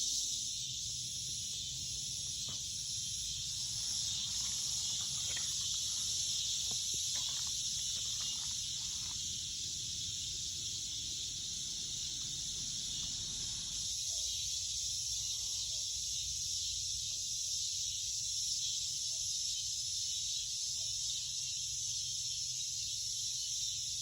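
Evening insect chorus: a steady, high-pitched drone with no pauses. A few faint clicks come in the first half.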